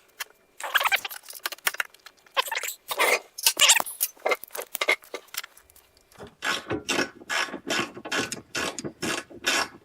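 Flex-head ratchet running bolts down into the luggage rack mount: irregular clicks and tool handling at first, then from about six seconds in an even run of ratchet strokes, about three a second, with the wrench spun like a speed wrench.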